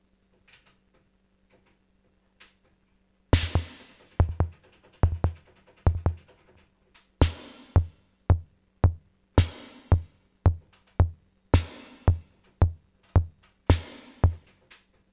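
Sound Master Stix ST-305 analog drum machine starting a pattern about three seconds in, after a few faint clicks. Low drum thumps fall several times a second, and a bright, long-decaying hit marks the start of each bar, about every two seconds.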